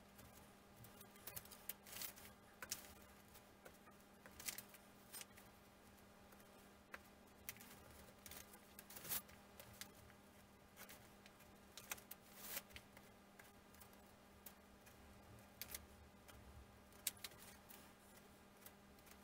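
Faint, irregular light clicks and taps of thin laser-cut wooden kit parts being handled and pressed out of their sheet, over a low steady hum.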